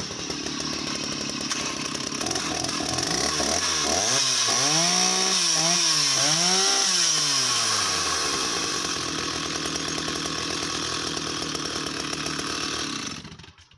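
Stihl 045 AV EQ 75cc two-stroke chainsaw running at high revs while cutting larch. Its engine note dips and climbs again about three times in the middle as the cut loads and frees the chain, and it cuts off sharply near the end.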